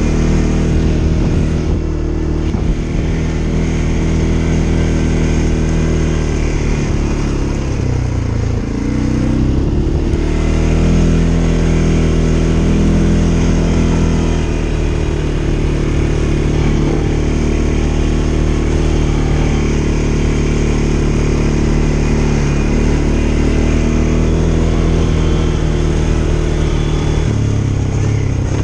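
CFMoto ATV engine running under way on a dirt track, steady and loud. The revs dip briefly and pick up again about eight to ten seconds in, and shift once more near the end.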